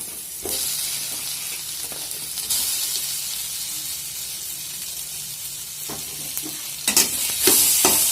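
Masala sizzling in hot oil in a kadai as fried bread balls are added, the hiss growing louder about half a second in and again a couple of seconds later. Near the end, a quick run of clicks and scrapes as the pan is stirred, over louder sizzling.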